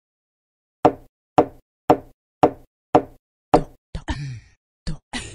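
Six sharp knock-like thud sound effects, about half a second apart, as items pop onto an on-screen slide, followed near the end by a few shorter, mixed sounds.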